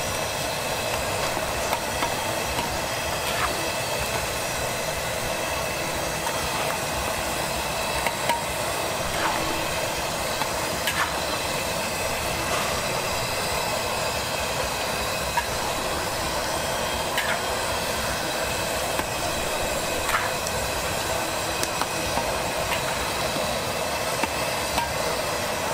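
Squid pieces deep-frying in a wok of hot oil: a steady sizzle, with scattered sharp pops and ticks.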